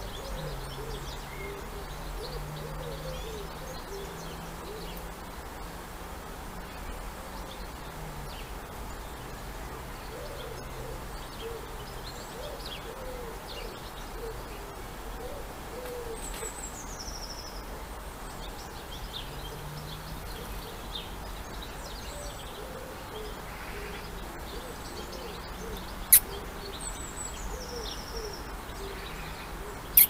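Outdoor birdsong ambience: many short, low repeated bird calls, with an occasional high, descending songbird trill. A single sharp click stands out about 26 seconds in.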